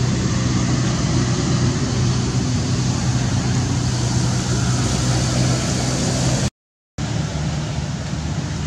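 A motor engine running steadily with a low hum, cut off by a half-second dropout about six and a half seconds in.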